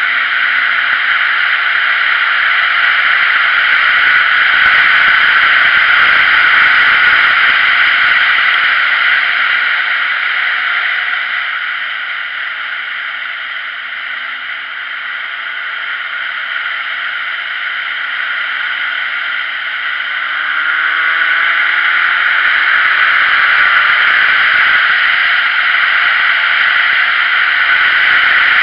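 Wind rushing over a motorcycle at road speed, with the bike's engine faint underneath. The wind noise eases in the middle, then builds again about two-thirds of the way through as the engine pitch climbs with acceleration.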